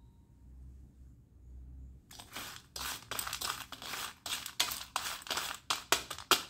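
A steel spoon stirs and scrapes through a heap of broken slate pencil pieces on a stainless steel plate, with the pieces rattling and crunching against the metal. It starts about two seconds in as a quick run of scraping strokes that become sharper and louder near the end.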